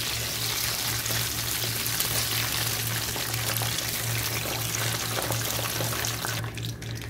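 Whole quail deep-frying in hot oil, a steady sizzle as the fried birds are lifted out on a wire strainer. The sizzle drops away sharply near the end.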